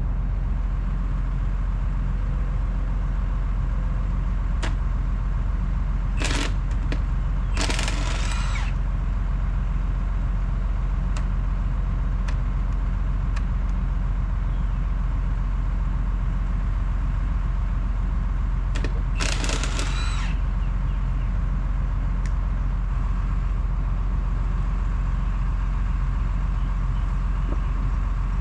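Cordless impact wrench rattling in three short bursts, about six seconds in, eight seconds in and near twenty seconds, as it spins lug nuts off a wheel. An engine idles steadily and loudly underneath throughout.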